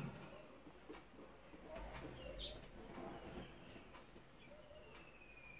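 Faint natural outdoor ambience with scattered wild bird calls: short chirps, a thin falling whistle and some low cooing.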